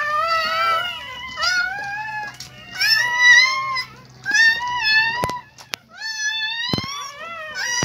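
Newborn puppies crying in a run of short, high-pitched squeals, each rising and falling in pitch, about eight in all. Two sharp clicks come near the end.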